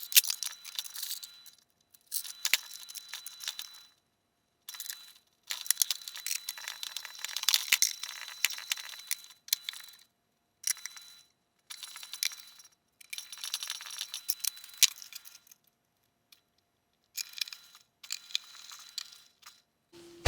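Handling noise from reassembling a loudspeaker: small metallic clatter, clicks and scraping in on-and-off spells, as of screws and parts being handled. The sound cuts out completely several times between spells.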